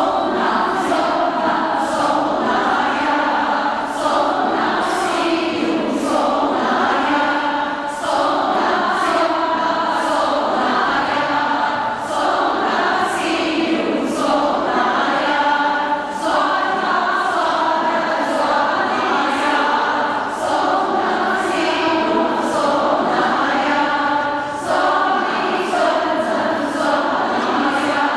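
A large group, mostly women, singing a song together, with a sharp regular beat a little faster than once a second.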